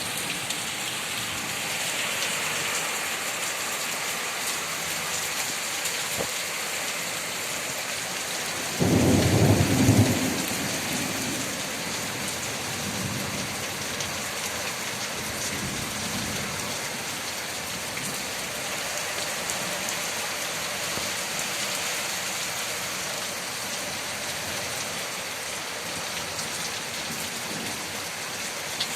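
Steady heavy rain falling. A loud low rumble of thunder comes about nine seconds in, followed by fainter rumbles a few seconds later.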